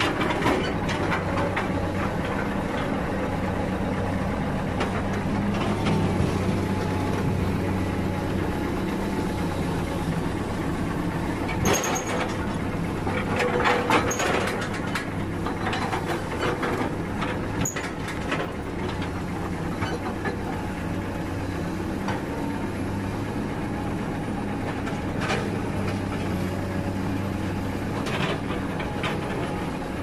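Heavy diesel engine running steadily at idle, with a few knocks and clatters about midway.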